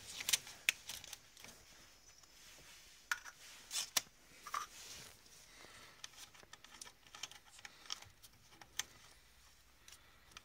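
Faint clicks and light scrapes of a small cap being unscrewed by hand from the brass drain valve at the bottom of a central-heating dirt and magnetic separator filter, with a small cup held beneath it. A few louder clicks come around the middle.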